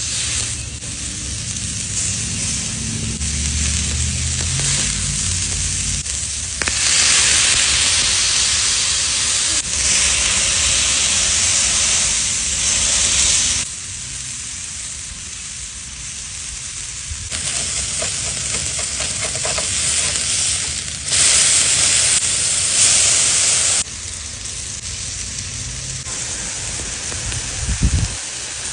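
Food sizzling and steaming on hot sizzler platters, a continuous hiss that jumps abruptly between louder and softer stretches several times. A brief low thump comes near the end.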